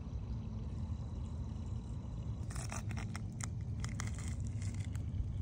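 Steady low rumble underneath. About halfway through comes a run of quick crackles and light splashing at the water's surface as fish bait is dangled at a three-toed amphiuma, lasting about two seconds.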